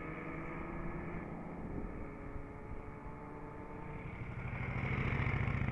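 Classic motorcycle engines on a rally ride. One fades as it rides off, then another grows louder from about four seconds in, with a fast pulsing exhaust beat near the end.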